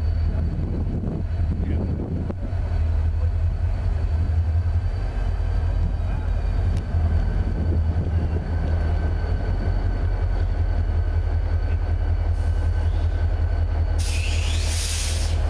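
Diesel locomotives leading a coal train approach with their engines running in a steady deep drone, with faint steady whines above it. Near the end a loud, high hiss lasts about a second.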